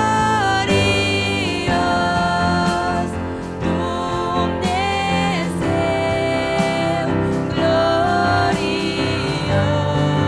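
Two women singing a Christian worship song in duet, holding long notes with short glides between them, over an electronic keyboard accompaniment.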